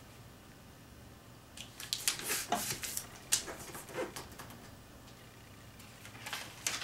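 A sheet of origami paper being folded by hand and creased flat against a desk: crisp rustles and swishes in short bursts, starting after a quiet second and a half, with a quieter spell around five seconds in.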